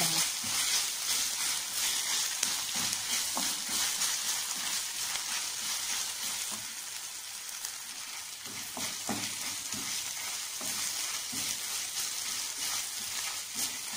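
Sliced onions and green chillies sizzling in hot oil in a kadai, stirred with a wooden spatula that now and then lightly knocks and scrapes on the pan. This is the sautéing stage, with the onions softening in the oil.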